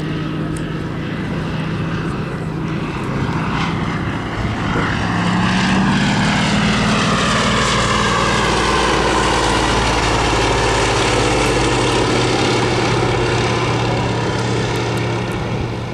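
Fairey Swordfish biplane's Bristol Pegasus nine-cylinder radial engine running as the aircraft flies past. It grows louder about five seconds in, and its pitch falls as it passes.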